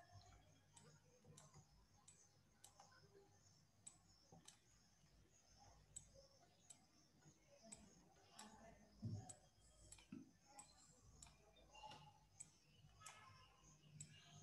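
Near silence of a small room with faint, evenly spaced light clicks, a little under two a second, and a faint low thump about nine seconds in.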